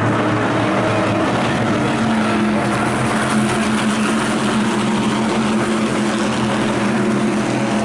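Engines of a pack of SK Light Modified race cars running at racing speed, a steady drone.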